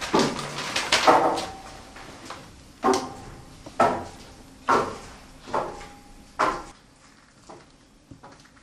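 A woman sobbing in short bursts, about one a second, fading away near the end, with paper rustling at the start as a letter is unfolded.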